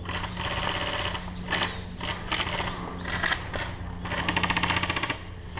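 Airsoft guns firing in bursts of rapid shots, ending in a longer, fast, evenly spaced full-auto string near the end.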